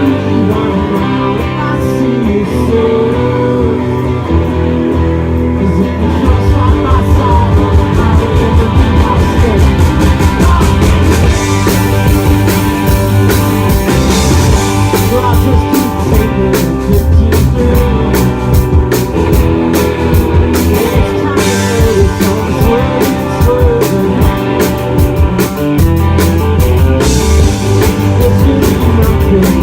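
Live rock band playing: guitars at first, then the drum kit and bass come in about six seconds in and the full band plays on loudly.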